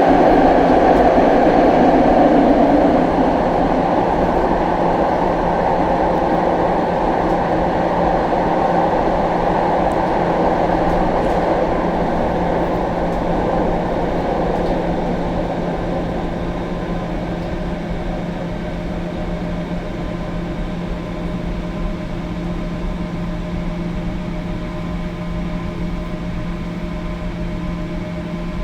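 Alstom Flexity Freedom light rail vehicle slowing to a stop: its rolling noise is loudest at first and fades away over about fifteen seconds. This leaves a steady electrical hum with several held tones.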